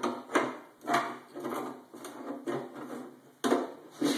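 Irregular knocks and clatter of hand tools and metal parts being handled during a motorcycle engine teardown, with a few sharper knocks about half a second, a second and three and a half seconds in.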